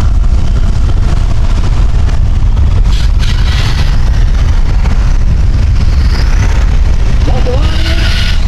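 Off-road competition buggy engine running hard under load, a heavy steady low rumble, with its tyres spinning and throwing gravel about three seconds in and again near the end.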